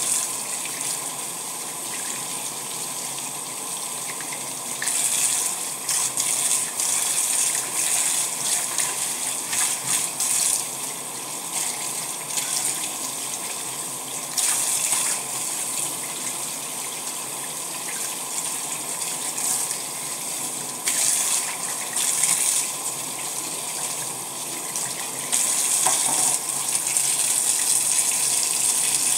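Tap water running and splashing into a stainless steel sink as hands scrub around the drain with a steel wool pad. The splashing swells louder several times, and most steadily near the end.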